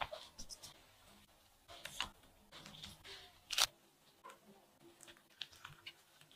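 Faint handling sounds of gloved hands filling and rolling a soft rice-paper wrapper on a wet wooden cutting board: soft rustles and scattered light clicks, the sharpest one about three and a half seconds in.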